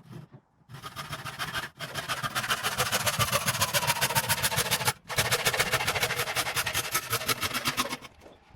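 Power saw cutting through the timber loft ladder to trim its bottom step to length, a fast pulsing buzz that stops briefly twice before ending.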